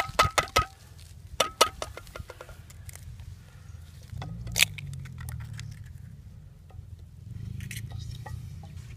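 A metal frying pan is handled and knocked on a rock, giving several sharp clinks with a brief ring in the first two seconds. About four and a half seconds in, a single sharp crack comes as an egg is broken on the pan.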